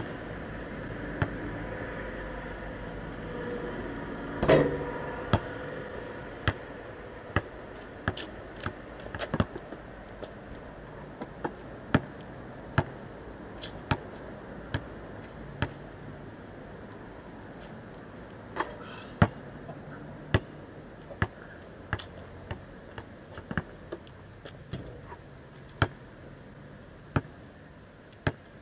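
Basketball bouncing on an asphalt court as it is dribbled, a sharp knock roughly once a second. There is one louder knock, with some ringing after it, about four and a half seconds in.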